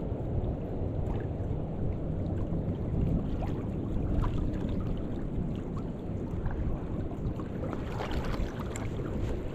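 Wind buffeting the microphone outdoors: a steady low rumble that rises and falls, with a few faint ticks over it.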